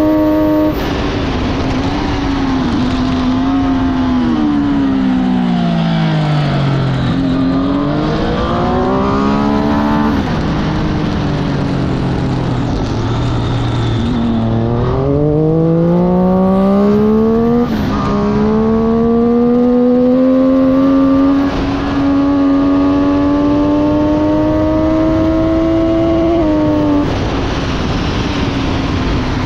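Track-day motorcycle engine at speed over a steady rush of noise. The engine note falls as the rider brakes and changes down into a slow corner, holds low for a few seconds, then climbs hard as the bike accelerates away, with an upshift partway through and another near the end.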